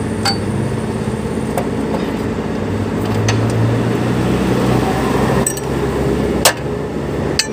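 Steel spanner clinking and knocking on the truck's metal parts during work on the air dryer valve, a few sharp knocks with the sharpest about six and a half seconds in, over the steady low hum of an idling engine.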